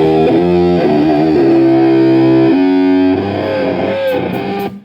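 Heavily distorted electric guitar through an amplifier, playing a run of held notes and chords with a bend near the end, then cut off suddenly.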